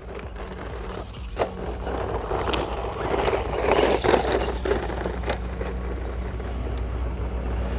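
Electric RC monster truck with a 390-size brushed motor driving over rough dirt: tyres crunching and scraping, loudest in the middle, with a few sharp knocks.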